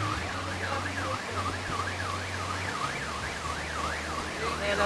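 An electronic siren yelping rapidly up and down, about two and a half sweeps a second, over a low steady rush of floodwater.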